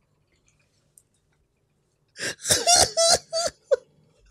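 A man laughing hard in about five short, high-pitched bursts, starting after about two seconds of near silence.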